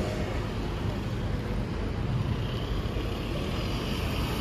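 City street traffic: a steady low rumble of passing cars and engines.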